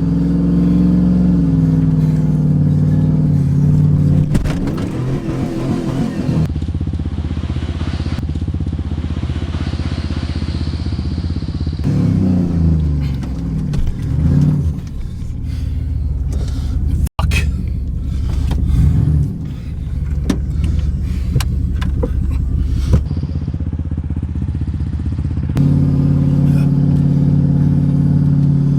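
1998 Dodge Ram 2500 pickup engine revving up and down as the truck is driven through a rough, muddy washout, with several sharp knocks and bangs from the suspension and body through the middle.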